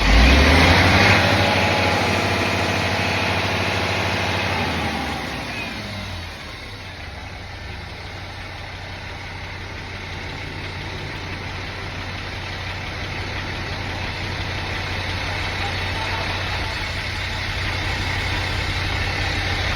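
An engine running fast at first, then dropping back about five to six seconds in and settling to a steady idle. The mechanic presents it as an abnormal engine sound.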